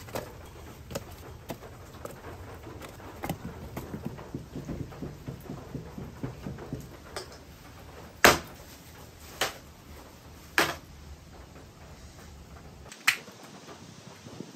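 Split firewood logs knocking and clattering as they are laid on a wood fire in a brick fireplace, with small crackles and clicks. Past the middle come three sharp knocks about a second apart, the first the loudest, and one more near the end.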